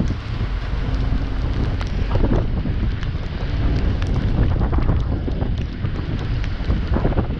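Loud, steady low rumble of heavy logging equipment running, with wind buffeting the microphone and scattered clicks and rattles throughout.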